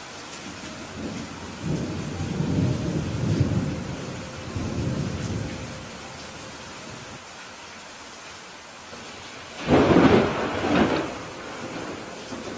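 Steady rain falling, with thunder: a low rolling rumble from about two seconds in that fades out a few seconds later, then a louder, sharper thunderclap with two peaks near the end.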